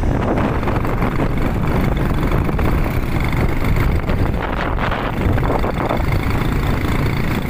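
A vehicle engine running at speed over a rough dirt track, with wind buffeting the microphone.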